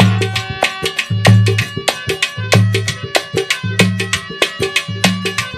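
Instrumental interlude of a folk devotional bhajan: hand drums play a quick, driving rhythm, with a deep bass stroke about every second and a quarter, over held melodic tones.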